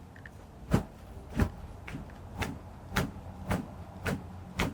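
Chiropractic treatment table knocking in a repeated rhythm, about two sharp knocks a second and not quite even, as a rhythmic decompression technique is worked on the patient.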